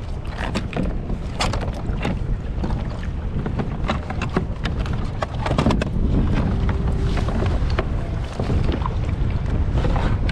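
Boat motor running with a steady low rumble under wind buffeting the microphone, with many short knocks and clicks scattered throughout.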